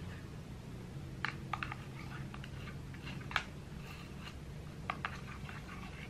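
Light handling sounds: a few soft clicks and taps with faint paper rustling as a book, papers and a plastic cup are handled, the sharpest tap about halfway through. A low steady hum of room tone underneath.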